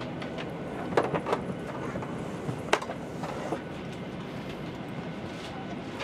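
Carry-on luggage knocking against a Boeing 737-800's overhead bin as it is stowed: a cluster of knocks about a second in and one sharp knock near three seconds. Under it runs the steady rushing hum of the parked airliner's cabin air.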